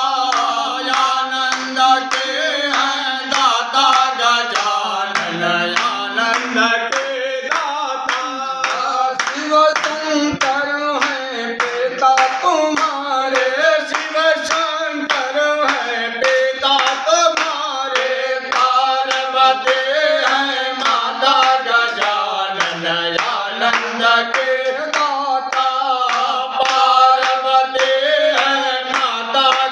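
Devotional aarti hymn sung by voices, accompanied by steady rhythmic hand clapping in time.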